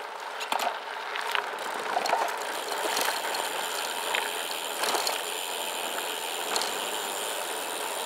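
SCOTT Addict Gravel 10 gravel bike rolling downhill over loose gravel: a steady crunching hiss from the tyres, with scattered clicks and rattles from small stones and the bike.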